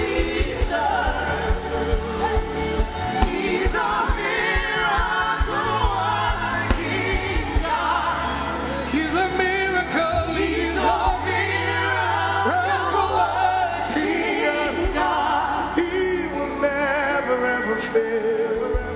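Live gospel worship music: several voices singing with wavering, ornamented lines over a band with a bass line.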